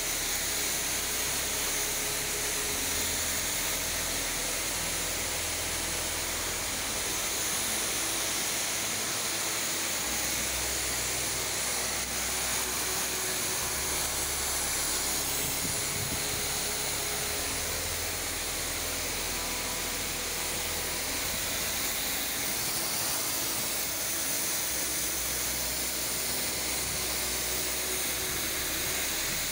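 Pressure washer jet spraying onto a paved floor: a steady, unbroken hiss of high-pressure water.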